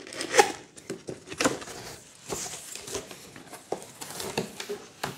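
A cardboard box opened by hand: plastic packing straps pushed aside and the flaps pulled open, with irregular rustling, scraping and tapping of cardboard.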